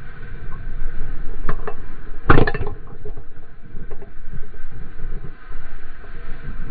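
Surfboard riding a breaking wave: water rushing and wind rumbling on a board-mounted camera, with a few knocks and one louder thump about two seconds in.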